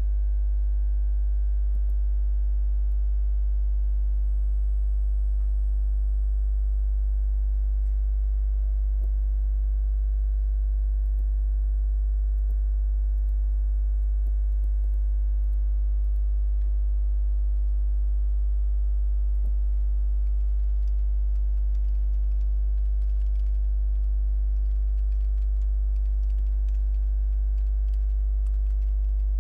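Steady low electrical mains hum with a stack of buzzing overtones, unchanging throughout, with a few faint ticks in the second half.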